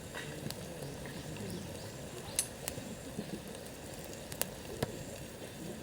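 Wood campfire crackling, with about half a dozen sharp pops over a steady hiss.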